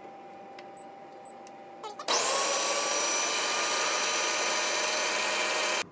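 Blender motor of a Homia Dansa baby food maker running at a steady pitch, puréeing steamed green beans. It starts suddenly about two seconds in and cuts off just before the end.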